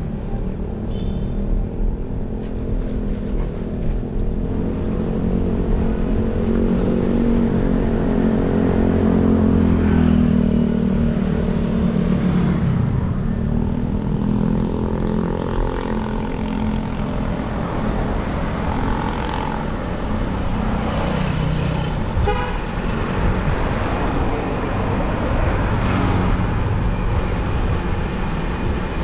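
Street traffic: a motor vehicle's engine passes close by, its pitch rising then falling from about six to sixteen seconds in, over a steady low road rumble. A few brief horn toots come later on.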